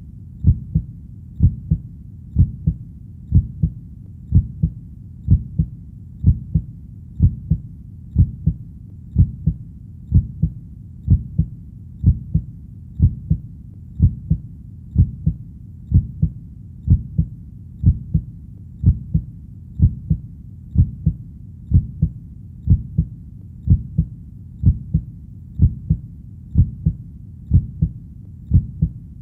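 Heartbeat, steady at about one beat a second. Each beat is a low double thump, lub-dub.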